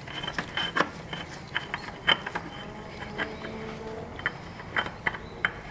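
Light scattered clicks and taps of hands screwing a new motorcycle oil filter onto its engine mount, with a faint wavering buzz about midway.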